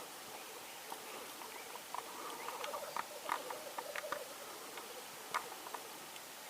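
Black grouse males bubbling at a spring lek: a low, rapid, rolling cooing that swells in the middle, with short sharp clicks scattered through it.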